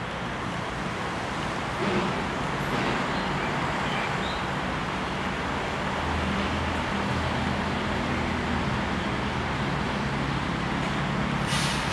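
Steady low mechanical hum and rumble with a noisy hiss, growing a little stronger about halfway through. A brief, sharper noise comes near the end.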